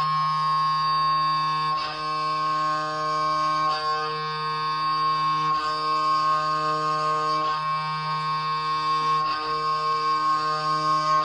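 Sustained amplified violin drone over a steady low string drone: many unchanging held tones stacked together, with a faint break in the sound about every two seconds.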